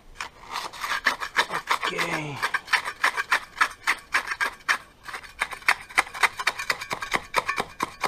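Small steel trowel scraping and packing sand along the side of a steel linear drain channel, in quick repeated strokes of about five a second.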